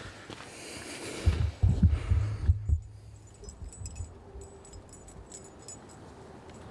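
Fabric rustling and heavy low thumps as a jacket is handled, then faint light clicks and jingling.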